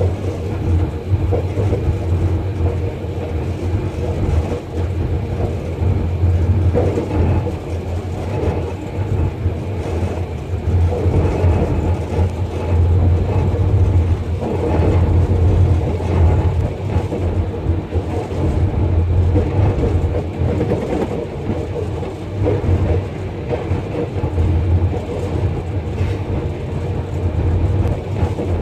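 Inside the cab of a ZCU-30 diesel-electric locomotive on the move: a steady low engine drone that swells and eases, with the rumble of the wheels on the track.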